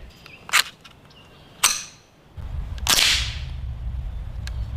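Two small clicks of .22 rimfire cartridges being pressed into the Winchester Wildcat's magazine, then a single .22 rifle shot, a sharp crack about three seconds in, over a low rumble.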